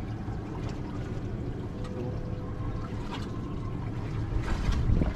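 Sea water lapping and trickling against the hull of a small fishing boat on a calm sea, over a steady low rumble, with a louder surge of noise near the end.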